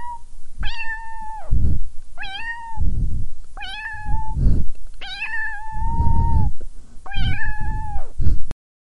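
Cat meowing repeatedly: five drawn-out meows a second or so apart, the fourth one the longest. Low rumbling noise comes in between the calls.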